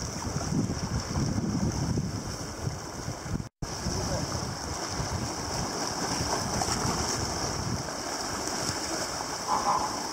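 Wind gusting on the microphone over small choppy waves washing against a rocky shore, with a steady high hiss. The sound cuts out briefly about three and a half seconds in.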